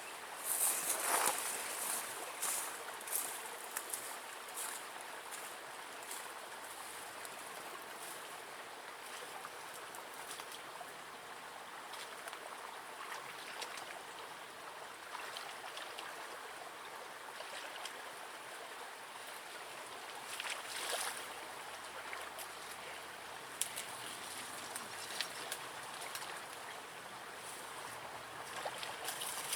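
Steady rush and trickle of running water in a small forest river, with a few brief louder splashy sounds, the loudest in the first couple of seconds and some more about two-thirds of the way in.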